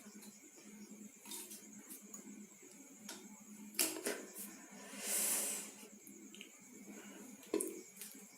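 Crimping tool squeezing an RJ45 connector onto a twisted-pair network cable: a few sharp clicks, with a short rustle of handling about five seconds in.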